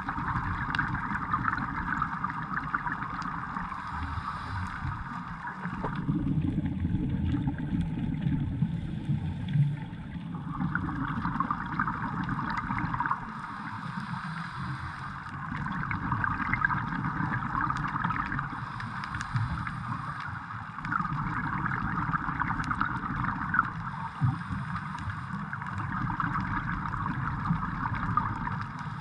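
Scuba regulator breathing heard underwater: slow breaths, with a hissing phase alternating every few seconds with a lower bubbling rumble.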